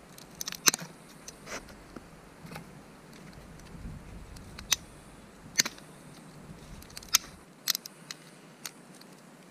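Dry twigs snapping and crackling: a string of sharp, irregular cracks several seconds apart, the loudest near the start.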